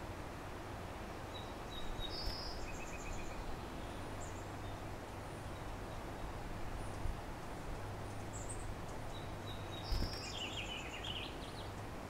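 Steady outdoor background hiss with a low hum, and a small bird singing a short song of high trills at several pitches twice, about eight seconds apart. A couple of faint low thumps in between.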